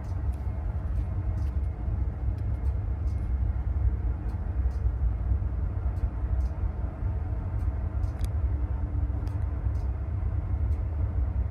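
Steady low rumble with a faint even hum over it, from a search-and-rescue helicopter hovering off a ship's bow.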